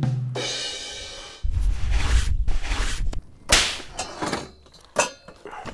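Editing sound effects: a fading low note, then a deep rumbling hit about a second and a half in, followed by two sharp whooshes, the second with a hit near the end.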